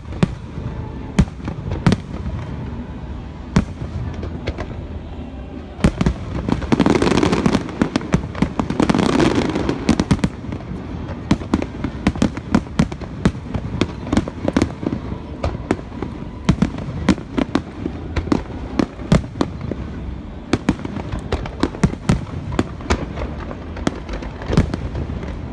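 Aerial fireworks display: shells bursting in quick succession as a steady run of sharp bangs, with a louder, denser stretch from about six to ten seconds in.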